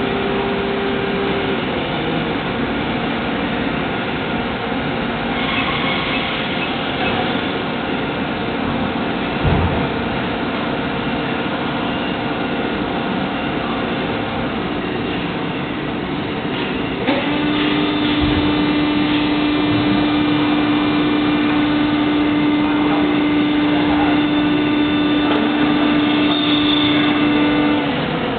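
Injection moulding machine running with its mould clamped shut, a steady mechanical drone with hum tones and a thump about a third of the way in. About two-thirds through a click is followed by a strong steady hum that stops near the end, shortly before the mould opens.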